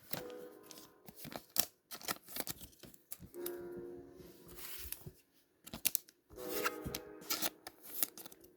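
Pokémon booster pack foil wrapper crinkling and tearing, with clicks and rustles of cards and packaging being handled, over soft background music.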